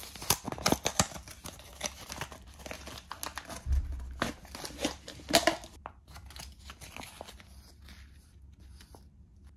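Thin plastic food packaging crinkling and tearing as a vacuum-sealed pouch is pulled open by hand: dense sharp crackles for about six seconds, then softer rustling.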